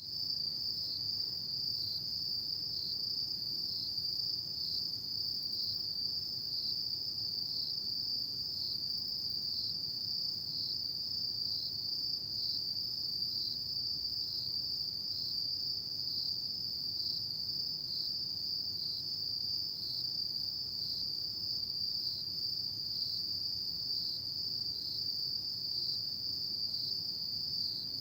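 Autumn crickets singing at night: a continuous high-pitched trill with a slight regular pulse.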